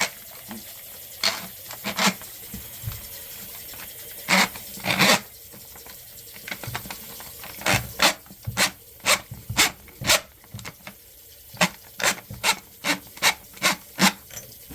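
Rasping, scraping strokes from a tool working on a clogged sink drain. They come in a few scattered strokes and one longer double scrape at first, then settle into a steady run of about two to three strokes a second in the second half.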